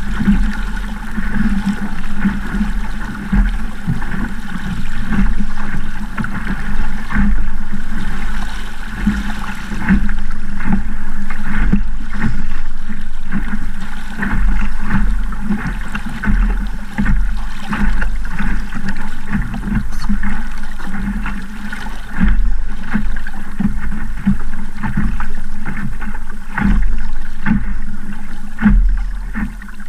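Water rushing and splashing against the hull of a small wooden Sabot sailing dinghy moving through choppy water, with wind buffeting the microphone in a steady low rumble.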